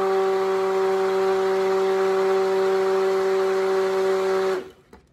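Handheld stick blender running steadily in a bucket of cold-process soap batter, a constant motor hum, blending to thicken batter that is slow to thicken. It switches off near the end.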